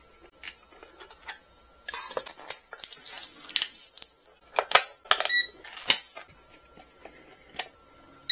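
Plastic clicks and rubbing as a TESMEN TM-510 digital multimeter is handled and pressed into its silicone bumper case, with one short electronic beep from the meter about five seconds in.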